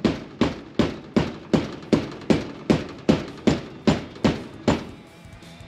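Rubber mallet pounding on a Bobcat excavator's hydraulic swivel joint held in a bench vise: a steady run of about a dozen sharp blows, roughly two and a half a second, stopping near the end. The blows are knocking the joint's inner part out through the bottom of its housing.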